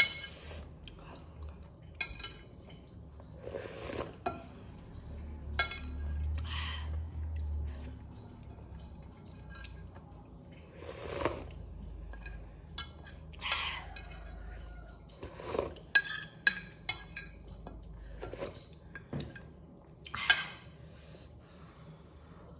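Metal spoon clinking and scraping against a ceramic soup bowl as broth is scooped up, with short sips and chewing in between; the clinks come irregularly, a dozen or more in all.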